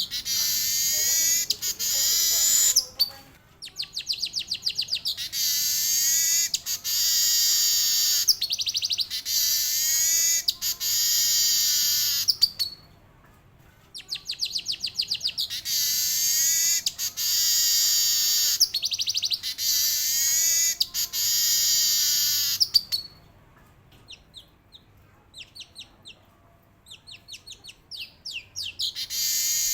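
Male manyar (weaver bird) singing its long rolling song. It goes in repeated phrases of a few seconds, each a run of quick ticking notes that runs into a dense, high buzzing chatter. Short breaks come between phrases, and near the end there is a longer lull with only scattered faint ticks.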